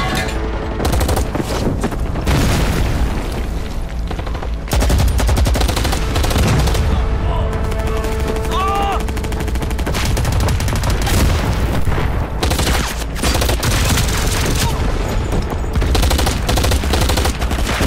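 Film battle soundtrack: sustained rapid machine-gun fire with booms of explosions, over music. The firing grows louder about five seconds in.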